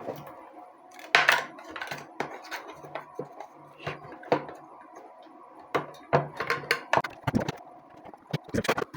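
Irregular knocks, taps and clatter of a homemade lithium battery pack being handled and pushed into its casing, with a low steady hum underneath.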